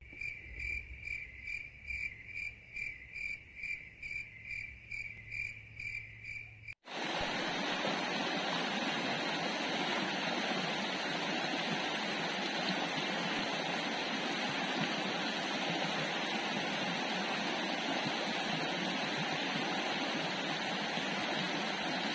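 A high chirp repeats evenly, about three times a second, then cuts off suddenly about seven seconds in. After that, a shallow rocky stream rushes steadily and evenly for the rest of the time.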